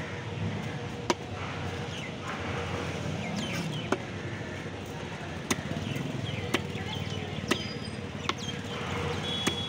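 Long heavy fish knife chopping fish fillets into pieces on a wooden log block: sharp knocks of the blade into the wood every second or two, about seven in all.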